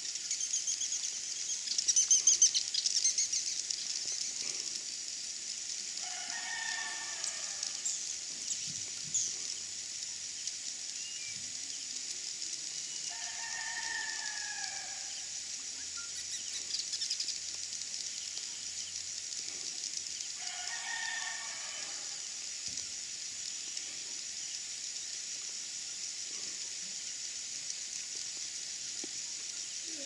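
Steady high-pitched insect drone of the rainforest. A bird calls three times, each call about two seconds long, about seven seconds apart. A short loud burst of rapid clicks comes about two seconds in.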